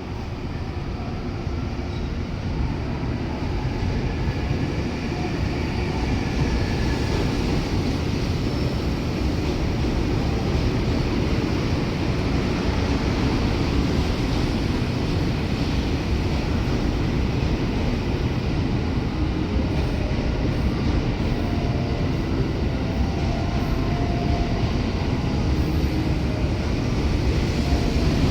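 JR West 683-series electric train pulling out and running, a steady rumble of motors and wheels on rail that grows louder over the first few seconds and then holds.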